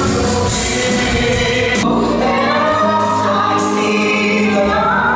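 Stage musical: a choir singing, with the voices sung live over musical backing.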